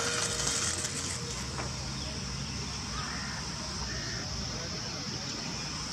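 Small electric RC warbird's motor and propeller whining steadily during takeoff, then dropping away about a second in as the plane climbs off, over steady outdoor hiss.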